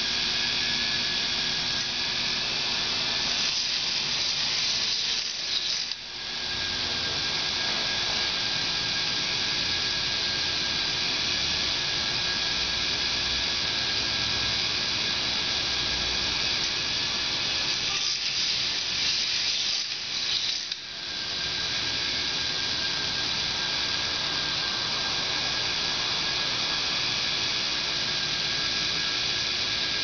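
K'nex Sonic Blizzard roller coaster model running: a steady mechanical clatter and whir from its motor-driven chain lift and plastic track. The sound dips briefly twice, once about six seconds in and again about twenty-one seconds in.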